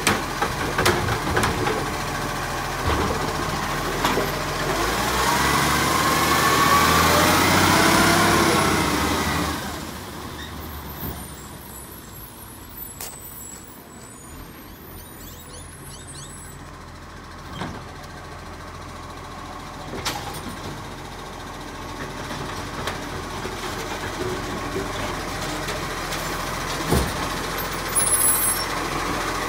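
Side-loader garbage truck's diesel engine revving with rising pitch as it pulls away, then fading as it drives off. It grows louder again and stops with a hiss of air brakes near the end.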